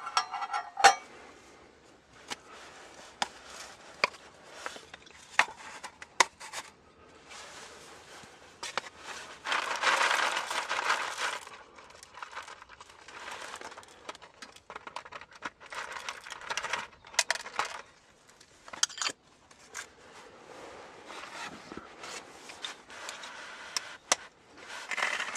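A metal lid clinks onto a stainless pot about a second in. Later, coffee beans rattle as they are poured into a hand coffee grinder, followed by the crackling crunch of the beans being ground as the crank turns.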